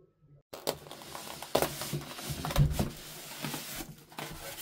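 Plastic packaging and polystyrene foam being handled: a dense rustling and crinkling with many sharp clicks and knocks, starting about half a second in.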